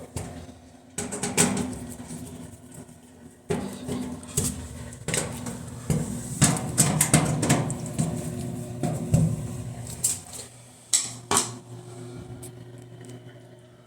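Irregular metallic clattering and sharp knocks, then a steady low hum starts about ten seconds in.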